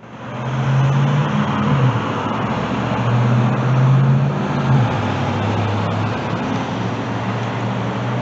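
Street traffic noise: a motor vehicle's engine hums steadily over road hiss, and its pitch drops a little about five seconds in.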